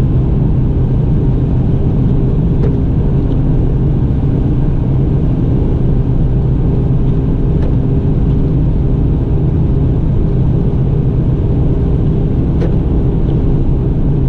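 A pickup truck driving on a snowy highway, heard inside the cab: a steady engine and road drone. There are faint ticks about every five seconds.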